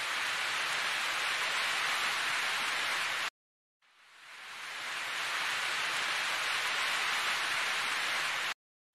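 A steady, even hiss like rushing surf or rain noise. It cuts off suddenly about three seconds in, swells back up over about a second, and cuts off again near the end.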